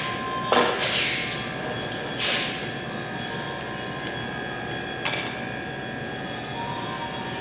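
A scraper drawn across a stone worktop, shaving chocolate into ruffled fans: three short scrapes, about half a second, two seconds and five seconds in. Under them runs the steady hum of kitchen machinery with a few held tones.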